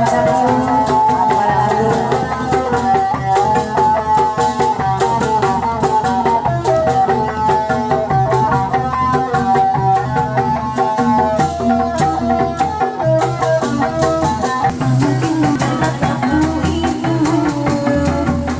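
Sundanese traditional ensemble music played live: melodic instruments hold sustained lines while hand drums (kendang) beat out busy patterns.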